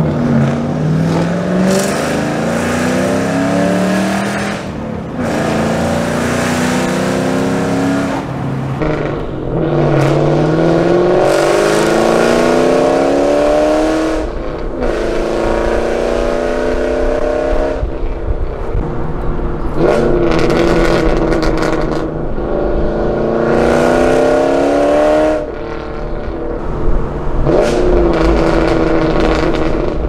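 Ford Mustang GT's 4.6-litre V8 under hard acceleration, the exhaust note climbing in pitch through the revs and dropping back at each shift, about seven pulls in a row.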